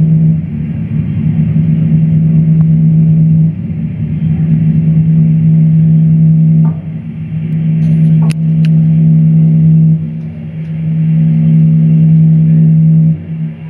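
Loud, sustained low drone from a live experimental music set: one steady pitch with a stack of overtones that dips briefly in level about every three seconds. Two sharp clicks come about eight seconds in.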